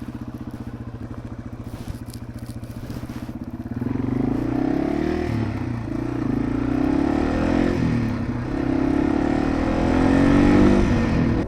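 Yamaha TW200's single-cylinder four-stroke engine running steadily at low revs, then louder from about four seconds in as the bike pulls away, its pitch rising and falling with the throttle.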